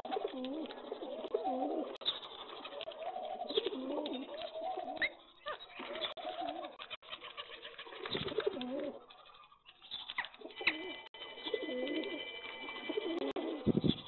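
Several rock pigeons cooing over one another in repeated wavering calls, with a short lull about two-thirds of the way through. A few brief wing flutters come in between the calls.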